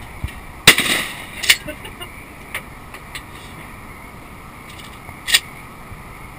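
A shotgun firing at a clay target: one loud shot under a second in, with a short echo trailing off, followed by a quieter sharp crack about half a second later. Another short, sharp report comes near the end.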